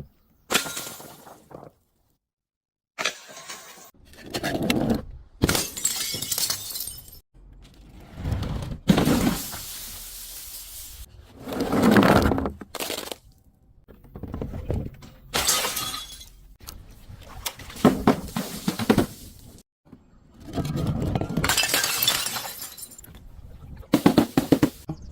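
Glass bottles breaking and shattering, one after another, in about ten separate crashes.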